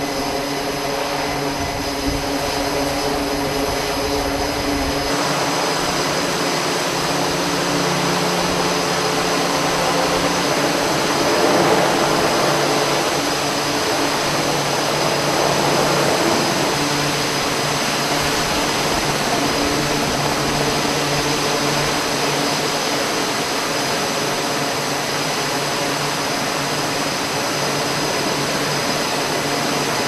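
Twin turboprop engines of an E-2 Hawkeye running steadily on the catapult, a drone of even propeller tones. A few seconds in, this gives way to a Seahawk helicopter's turbines and rotor running as it comes in to land and sits on deck, swelling louder around the middle.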